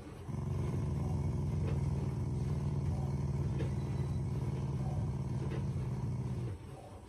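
Black Shiba Inu growling: one long low growl of about six seconds that stops near the end. It is a play growl aimed at its owner to get attention, not a sign of anger.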